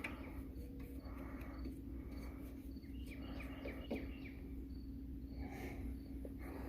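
Faint outdoor background of small birds chirping in short series over a steady low hum, with one light knock about four seconds in.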